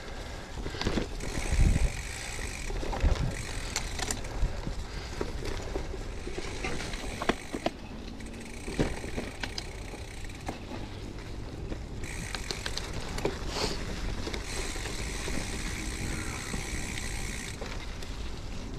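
Gravel bike riding over a rough forest track: tyres rolling on dirt and gravel, and the bike rattling with scattered sharp knocks over bumps, the hardest within the first few seconds.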